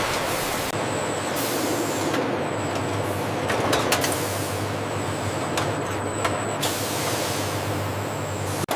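Bottling-line machinery running: a steady mechanical hum with hisses of air that come and go and a few faint clicks. The sound cuts out briefly near the end.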